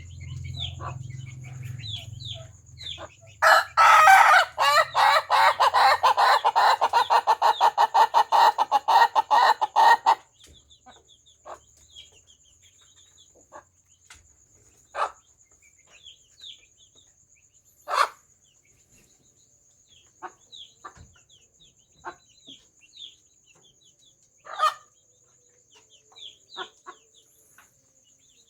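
Ayam ketawa rooster giving its long 'laughing' crow, a fast run of repeated loud notes lasting about seven seconds that starts a few seconds in. Scattered short clucks and small peeps follow. A faint steady high whine runs throughout, and a low hum is heard in the first few seconds.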